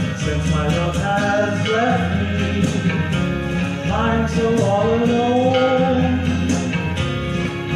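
A song performed by a singer with instrumental accompaniment and a steady beat.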